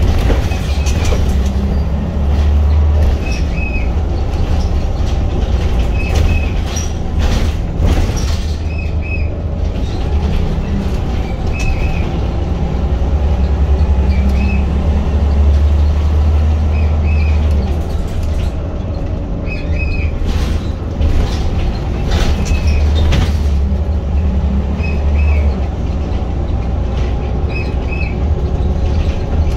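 Inside a Scania L94UB single-decker bus on the move: the diesel engine's low rumble swells and eases with load over road noise. Short high squeaks recur every few seconds, with a few knocks about 7 seconds in and again around 19 to 21 seconds.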